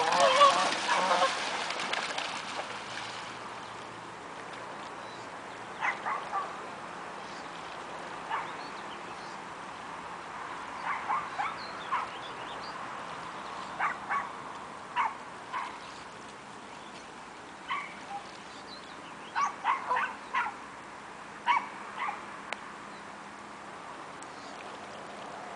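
Canada geese calling: a loud flurry of calls in the first two seconds, then short, scattered single calls and pairs over steady water noise.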